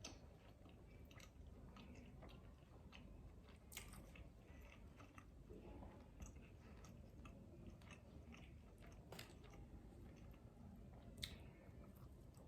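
Faint close-up chewing and biting of food, with scattered soft mouth clicks and a few sharper crunchy clicks, one near the end the loudest.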